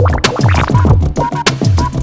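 Background hip-hop style music with a driving drum beat.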